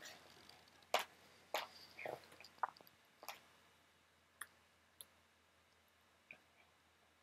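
Computer keyboard and mouse clicks from copying, pasting and formatting text: about eight separate sharp clicks, bunched in the first three and a half seconds and thinning out after, with a brief falling squeak among them about two seconds in.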